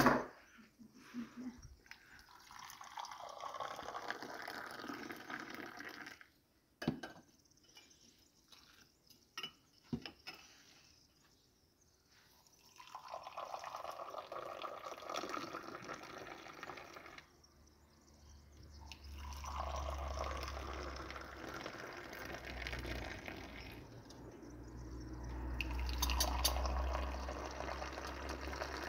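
Tea being poured from a metal teapot into small tea glasses, about four pours of a few seconds each, with a few light knocks in between.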